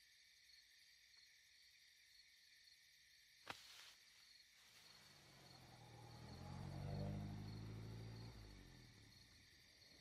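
Faint night ambience of crickets chirping steadily. There is a single sharp click about three and a half seconds in, and a low hum swells and fades in the middle.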